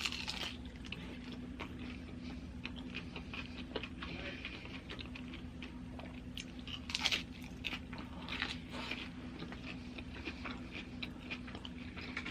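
Close-miked chewing and crunching of loaded nachos, tortilla chips breaking between the teeth in irregular bites, the loudest crunches about seven seconds in and again about a second later.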